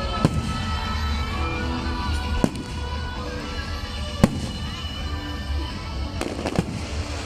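Aerial firework shells bursting: about five sharp bangs spaced a second or two apart, the loudest a little past halfway, over music playing throughout.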